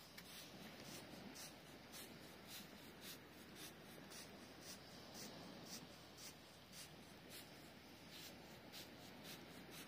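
Faint footsteps crunching in dry beach sand, about two steps a second, evenly paced.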